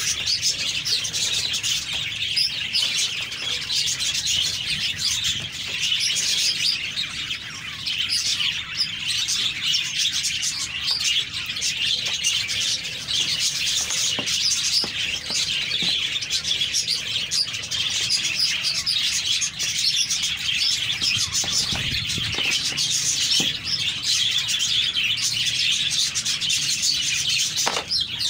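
Many small birds chirping together in a dense, unbroken chorus.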